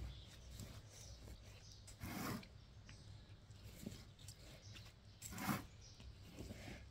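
Hands pressing down and rustling gritty potting mix with perlite to firm the soil around a repotted succulent's roots: faint scraping rustles, with two louder brief scrapes about two and five and a half seconds in.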